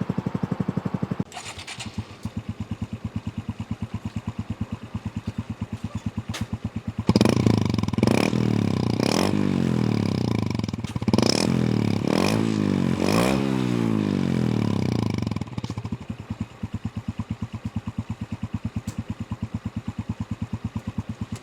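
Honda CT125's single-cylinder four-stroke engine through an aftermarket full exhaust system, idling, then revved in about six quick throttle blips, each rising and falling, before settling back to idle.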